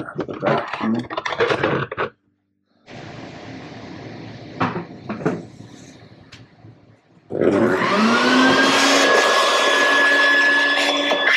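Shop vacuum switched on about seven seconds in, its motor whining up in pitch to speed and then running steadily while its hose sucks dirt and sand out of a utility vehicle's airbox. Before that there are a few knocks and some handling noise.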